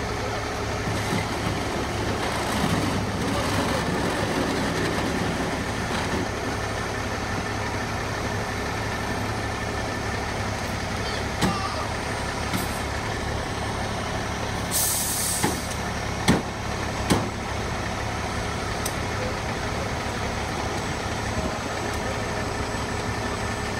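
Fire truck's diesel engine idling steadily. About fifteen seconds in there is a short hiss, and a few sharp knocks come around it.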